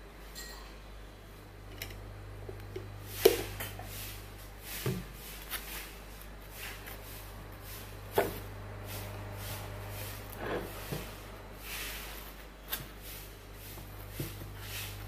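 Handling sounds of a honey jar and a metal spoon: scattered clicks and knocks as the jar is opened and honey is scooped out, the sharpest knock about three seconds in, over a steady low hum.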